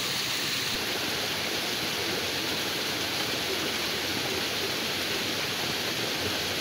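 Steady rain falling on a small stream and the wet leaves along its bank, an even hiss that does not change.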